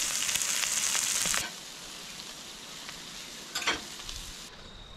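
Shrimp tails and fish fillets sizzling in a smoking-hot frying pan on a portable gas stove. The sizzle drops much quieter about a second and a half in, and a brief knock comes near the end.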